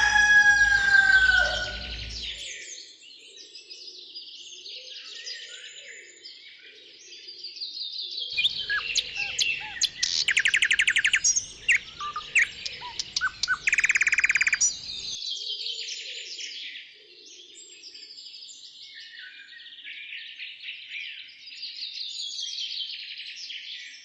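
Many small songbirds chirping and trilling together. A lower call falls in pitch in the first two seconds, and from about eight to fifteen seconds in the birdsong is louder and denser, with rapid buzzy trills.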